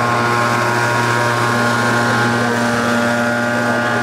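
A steady mechanical drone from a motor: a low hum with several higher steady tones above it, unchanging in pitch and loudness.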